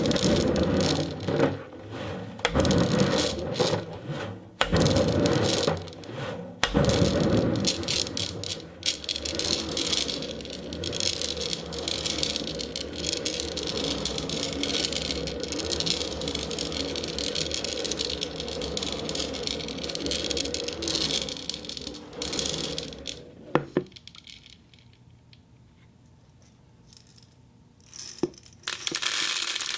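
Ceramic balls rattling and clicking against one another in a dense, continuous clatter that dies away about three-quarters of the way through. A single sharp click, then a short burst of rattling, follow near the end.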